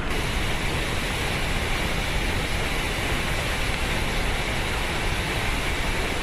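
Floodwater pouring from the open floodgates of the Shimen Dam spillway: a steady, continuous rush of water and spray.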